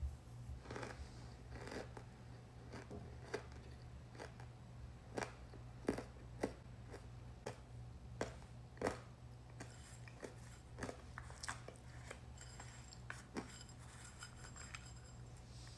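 Chunks of flavored cornstarch being crunched: an irregular string of sharp crunches and squeaks, loudest about six and nine seconds in, with faster, finer crackling near the end.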